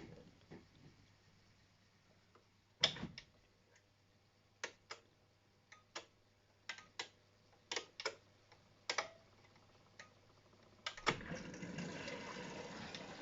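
AEG Öko-Lavamat 693 washing machine: about a dozen sharp, irregular clicks from its controls being set, over a faint low hum. About eleven seconds in, a louder clack is followed by water rushing in as the fill starts.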